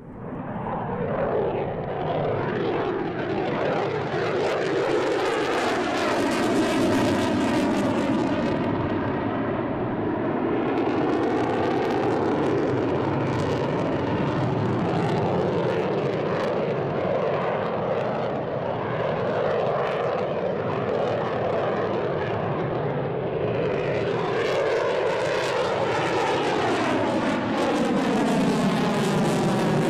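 An F-22 Raptor's twin Pratt & Whitney F119 turbofans in a low flying pass: loud continuous jet noise that swells in about a second and wavers with slow sweeping rises and falls in pitch as the jet passes and climbs. The noise grows hissier near the end.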